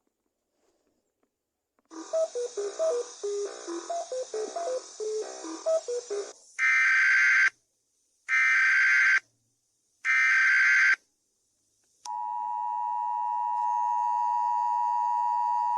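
Emergency Alert System tones. About two seconds in comes a quick run of short electronic beeping notes over a hiss, then three separate one-second bursts of the SAME data header, and from about twelve seconds the steady two-tone EAS attention signal.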